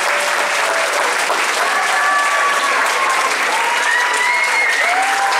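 Audience clapping steadily for a dance performance, with a few voices calling out over the applause.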